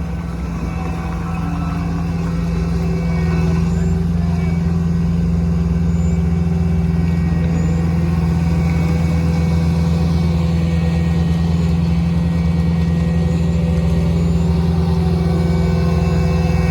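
Skid steer loader's engine running steadily under load, growing a little louder over the first few seconds.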